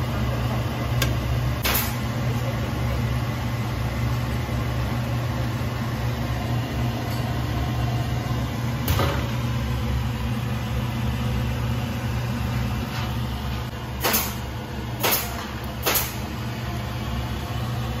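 Sliced shallots sizzling in oil in a stainless steel wok over a steady low hum, with a metal spatula clinking against the wok a few times, three in quick succession near the end.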